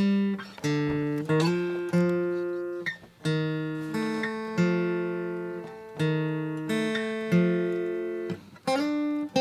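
Acoustic guitar music: plucked notes and chords, each ringing out and fading before the next, a new one about every second or less.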